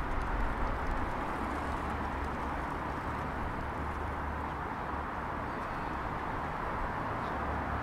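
Steady city background noise: a hum of distant traffic with a low rumble underneath.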